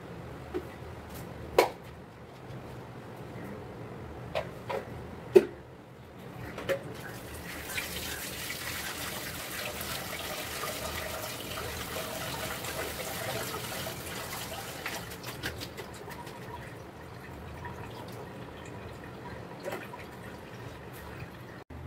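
Raw chicken being washed by hand in a plastic colander set in a bowl of water. There are a few sharp knocks in the first several seconds, then water splashes and pours steadily for about six seconds from around eight seconds in, with small knocks and drips after.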